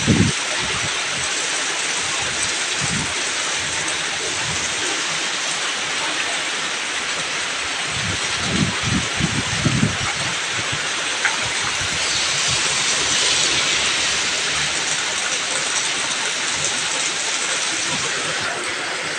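Heavy rain: a steady, even hiss of a downpour on the ground and road, with a few short low thumps about halfway through.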